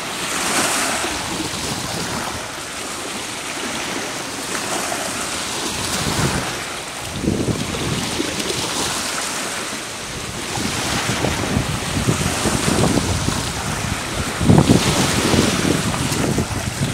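Waves washing against the shore, with wind buffeting the microphone in gusts that rumble loudest around the middle and again near the end.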